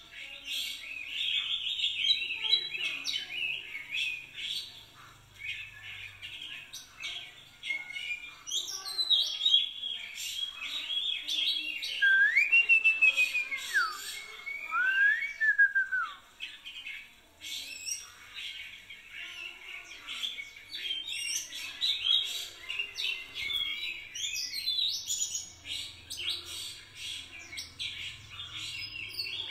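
Songbirds chirping busily and without pause, with a few clear whistled notes that slide up and down about twelve to sixteen seconds in.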